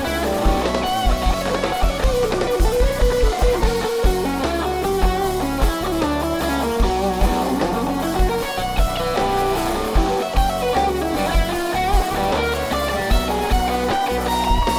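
Live rock band playing an instrumental passage: an electric guitar lead with bending, gliding notes over bass, drums and keyboards.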